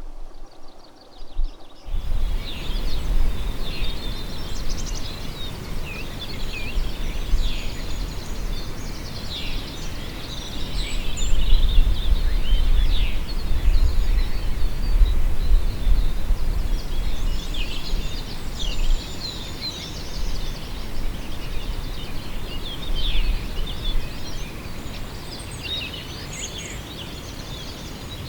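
Several small birds chirping and twittering in quick, overlapping calls, starting about two seconds in. A steady low rumble of wind on the microphone runs underneath and is loudest about halfway through.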